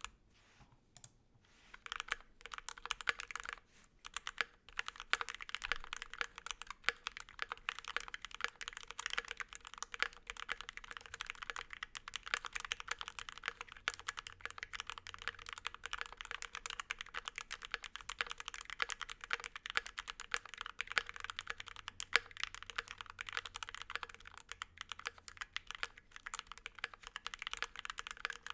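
Typing on a mechanical keyboard: a KBD67 MKII with a brass plate and foam, stock unlubed C3 Tangerine V2 67g linear switches and GMK Metropolis keycaps. A few separate keystrokes come first, then from about two seconds in a fast, steady stream of keystrokes.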